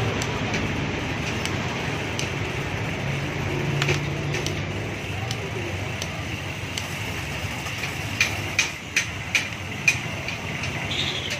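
Steady traffic and shop background noise, with a quick run of about five sharp clicks near the end as a bicycle pedal is threaded and tightened onto its crank arm.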